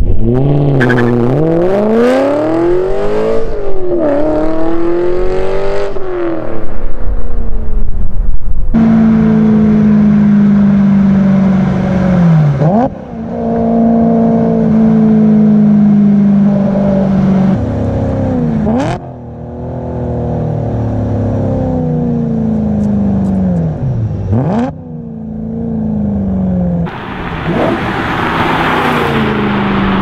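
BMW M3's S65 V8 through a Meisterschaft GT cat-back exhaust: revving up and down at first, then running steadily under the exhaust with three rev-matched downshift blips, the pitch dropping and jumping back up each time, and revving hard again near the end.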